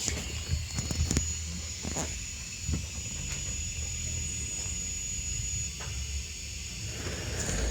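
Low steady rumble with a faint high whine over it, broken by a few sharp clicks and knocks in the first couple of seconds.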